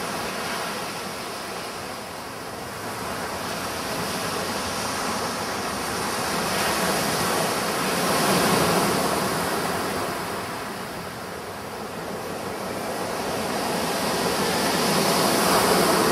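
Sea surf washing onto a beach, a steady rush that swells and eases in slow waves, loudest about halfway through and again near the end.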